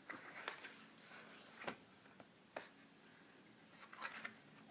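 Quiet handling of a picture book: faint paper rustling and a few light clicks, the sharpest about a second and a half in.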